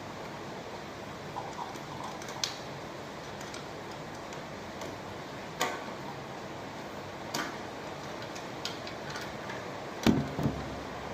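Scattered light clicks and taps of hand work fitting a ceiling fan blade to the motor with screws and a spanner, over a steady hiss, with a louder knock near the end.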